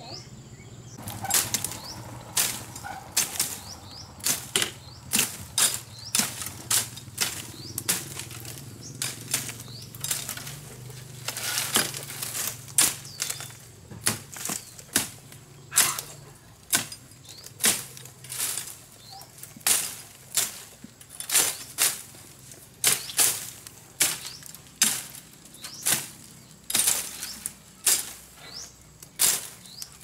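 Machete chopping bamboo stems: a long series of sharp, irregular hacks, about one or two a second.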